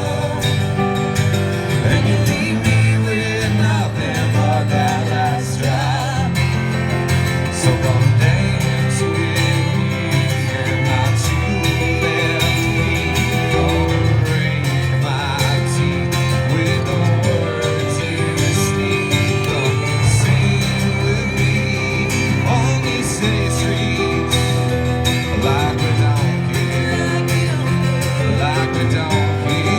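Live band music with guitar and a steady bass line, playing without a break.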